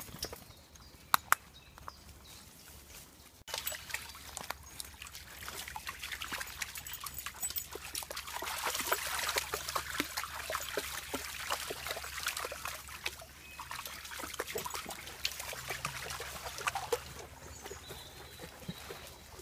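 A dog wading and splashing through a shallow stream, with water sloshing and trickling around its legs. The splashing starts suddenly about three seconds in, is loudest around the middle and eases off near the end.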